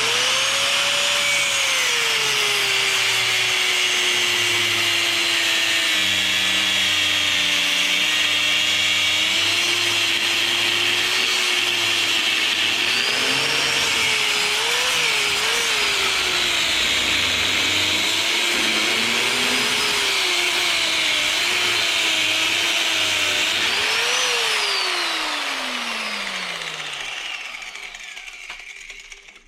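Handheld electric power tool cutting through the copper windings of a scrap electric motor, its motor pitch sagging and wavering as it bites, with a steady screech of metal being cut. About 24 seconds in it is let off and spins down with a falling whine.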